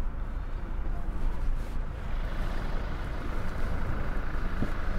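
Vehicle engine and road noise heard from inside the cab, a steady low rumble as it rolls slowly forward at low speed.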